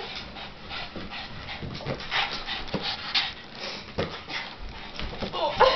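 Boston Terrier panting and whining in excitement, with a short high yip near the end. A few sharp taps are heard along with it.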